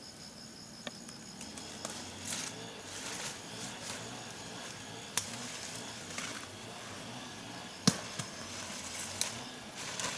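Rustling with several sharp snaps or clicks, the loudest about eight seconds in. A faint insect trill runs through the first two seconds.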